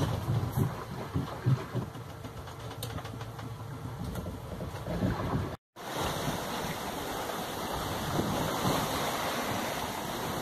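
Sea noise aboard a sailing yacht: first uneven rushing and low thuds of water against the hull. Then, after a brief dropout about halfway through, a steady rush of wind across the microphone over open, choppy sea.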